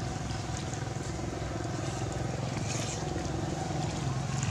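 Steady low engine hum with faint scattered clicks over it.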